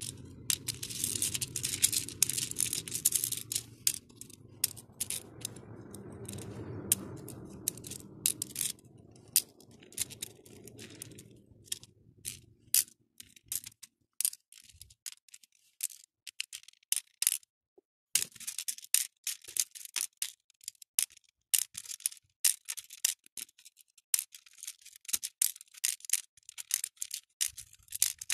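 Acrylic beads clicking and rattling against each other and the clear plastic compartment tray as fingers pick through and sort them. Quick clicks come thick at the start and again in the last third, with only scattered clicks in between. A low rumble sits underneath and fades out about halfway.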